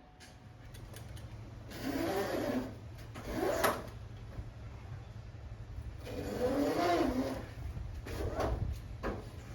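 Pressure washer running with a steady low hum, swelling louder in four bursts as the spray is triggered against the pool cage to strip loose old paint.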